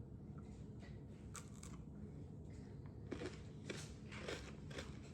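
Faint crunching as someone bites into and chews a fridge-chilled dark chocolate peanut butter protein shell with a crunchy, brittle-like centre: a few light crunches, then a run of irregular crunching chews from about three seconds in.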